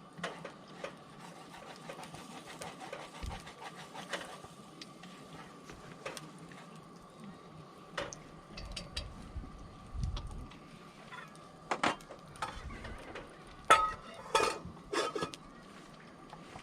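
Wood campfire crackling with scattered sharp pops. A few louder knocks and clinks come in the second half.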